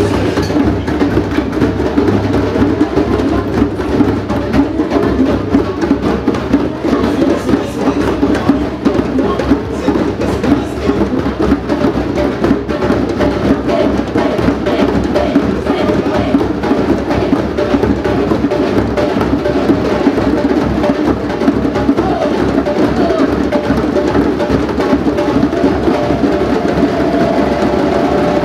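Many djembes and other hand drums beaten together in a drum circle, a dense steady rhythm with no breaks, with a large barrel drum struck with sticks.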